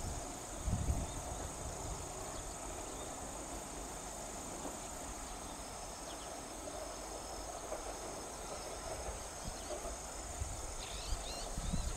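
Steady high-pitched chorus of insects. Bursts of low rumble come about a second in and again near the end, and a few short chirps come near the end.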